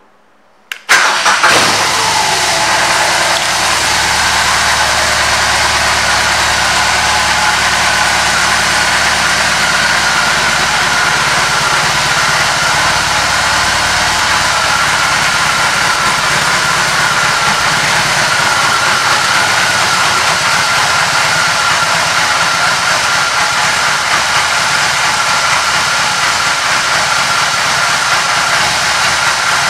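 A BMW R 18's 1800 cc boxer twin is started about a second in. It catches with a brief flare of revs, then settles into a steady idle.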